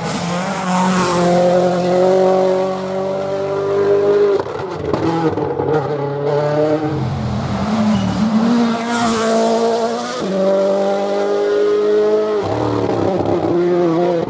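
Rally car engine at full throttle, rising in pitch for a few seconds, then backing off sharply. This happens twice, about four seconds in and again near the end, and a rush of tyre noise comes as the car passes close.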